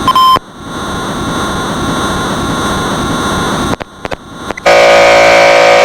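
Harsh noise music made of abrupt cut-up sound: a short beep right at the start, then a long hissing noise layer with steady high tones, and after a brief drop a loud, harsh buzz from just under five seconds in.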